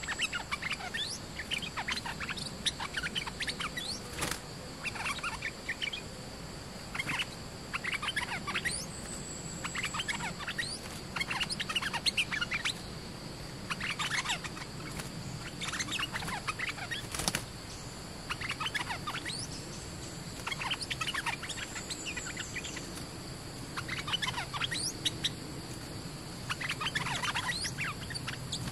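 Bulbuls calling in short chattering phrases of quick sweeping notes, repeated every second or two: a caged decoy and a wild bird drawn in to it. A steady high insect hum runs underneath, and two sharp clicks come about 4 and 17 seconds in.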